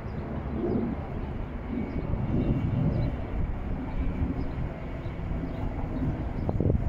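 Budapest HÉV electric suburban train rolling slowly into the station, a steady low rumble of wheels and running gear with one sharp clank near the end.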